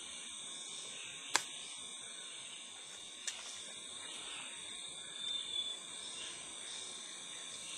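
Steady high-pitched chorus of rainforest insects such as crickets, with two sharp clicks, one about a second and a half in and one about three seconds in, and a brief louder high note a little after five seconds in.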